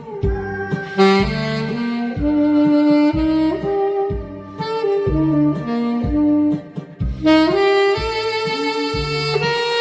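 Saxophone playing a slow, legato melody with held notes and slides between them, over a backing track with a steady bass beat.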